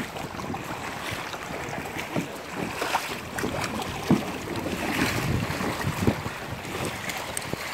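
Wind buffeting the microphone over choppy lake water, with irregular splashes and knocks of paddle strokes and water slapping an inflatable kayak.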